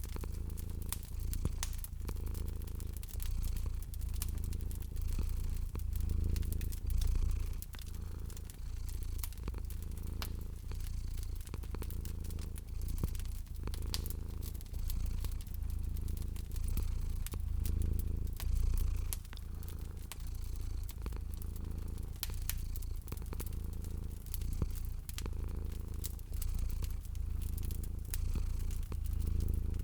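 Domestic cat purring: a steady low rumble that swells and eases in a slow, even rhythm. A wood fire crackles over it with small, scattered pops and snaps.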